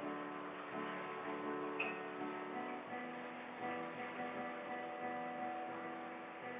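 Acoustic guitar being strummed, playing a run of chords.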